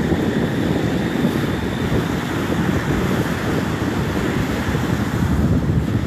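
Wind buffeting the microphone in a steady, ragged rumble, with small waves washing onto a sandy shore behind it.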